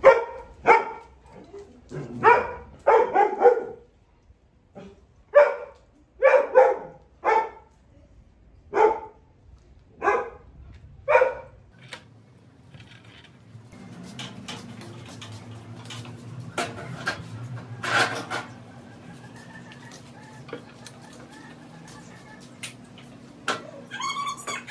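Dog barking repeatedly, about a dozen barks at uneven spacing, stopping about twelve seconds in. After that, a quieter steady low hum with scattered clicks.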